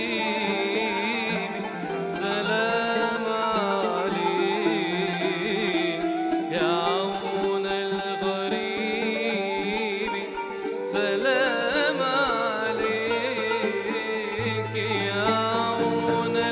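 A man sings an Arabic nasheed with wavering, ornamented vibrato, accompanied by a riq (Arabic tambourine) and plucked strings.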